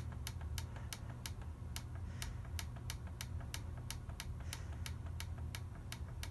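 Small plastic set buttons on an Equity Model 1010 digital alarm clock clicking as they are pressed over and over, about four clicks a second, stepping the time forward. A low steady hum sits underneath.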